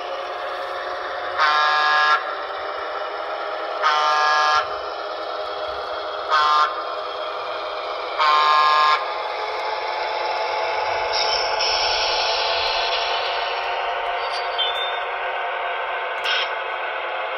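Sound-equipped Broadway Limited GG1 electric locomotive model running, its speaker playing a steady electric-locomotive motor and blower hum. Over the hum it sounds its horn in the grade-crossing pattern: long, long, short, long.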